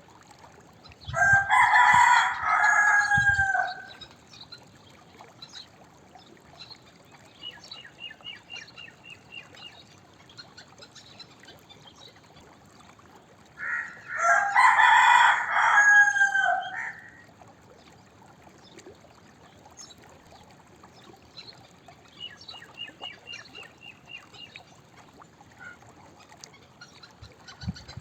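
Rooster crowing twice, about twelve seconds apart, each a loud cock-a-doodle-doo of around three seconds. Faint chirping sounds between the crows.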